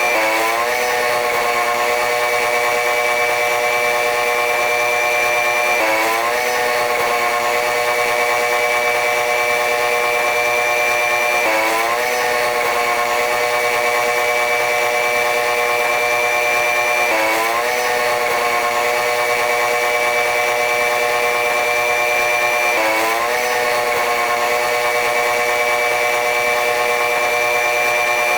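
Train running noise: a steady mechanical hum with several pitches and a high whine. Its pitch dips briefly and climbs back about every six seconds, in an even repeating pattern.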